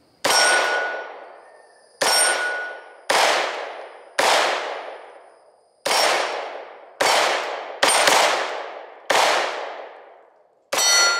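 Nine semi-automatic shots from a Freedom Ordnance FX-9 9mm AR pistol, fired one at a time about a second apart, each trailing off in a long echo. A thin metallic ring follows several of the shots, from hits on a metal target.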